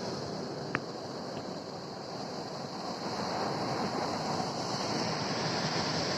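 Ocean surf rushing on the shore, a steady wash of noise with wind on the microphone, growing a little louder after a few seconds. A single sharp click sounds about a second in.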